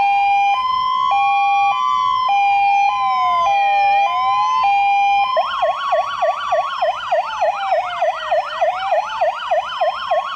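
Two fire engine sirens sounding together. One gives a slow rising-and-falling wail throughout. The other alternates between two tones, then about five seconds in switches to a rapid yelp.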